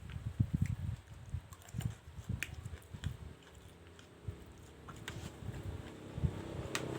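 Close-miked chewing of mie goreng fried noodles: irregular soft mouth sounds with small sharp clicks. A low steady hum builds near the end.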